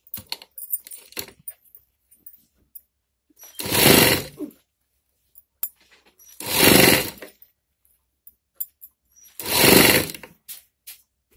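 Sewing machine stitching a sleeve onto a blouse in three short runs of about a second each, a few seconds apart, with light clicks between runs as the fabric is repositioned.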